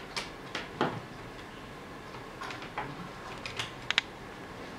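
Scattered light clicks and taps of a USB cable plug being handled and pushed into a laptop's side port, with two sharper clicks close together near the end.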